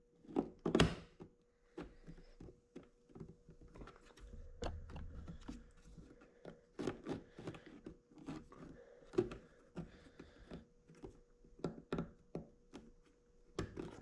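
Scattered plastic clicks and knocks as a car's side-mirror glass is worked loose from its housing by hand, with one louder knock about a second in and a few dull thuds a few seconds later.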